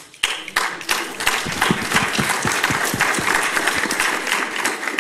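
Audience applauding: the clapping starts at once, holds steady and begins to thin out near the end.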